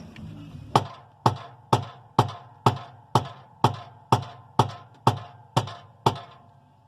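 Rubber mallet striking a new clutch bushing to drive it into place in a Whirlpool washing machine: twelve even blows, about two a second, each with a short ring.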